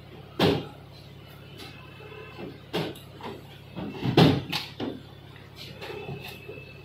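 Car door handle pulled and the latch releasing with a loud clunk a little past four seconds in as the hatchback's front door swings open. A few other sharp knocks come before it.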